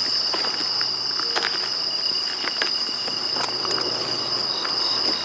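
Night chorus of crickets: a steady, unbroken high-pitched trill, with a second, lower insect song and short repeated chirps joining in the second half. Faint clicks and rustles are heard now and then.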